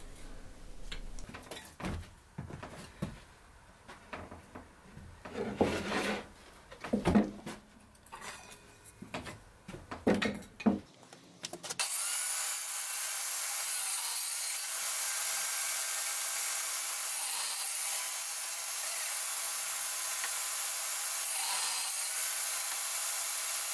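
Table saw cutting wood: for about the first half only a few quiet, scattered knocks and scrapes, then about halfway in the saw bites into the board and a steady, loud cutting noise runs on.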